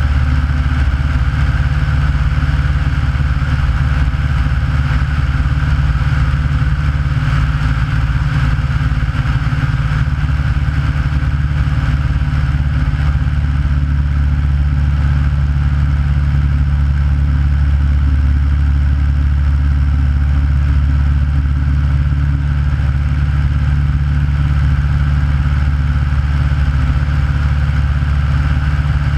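Aeronca light airplane's piston engine and propeller running steadily in flight, a loud, unchanging drone.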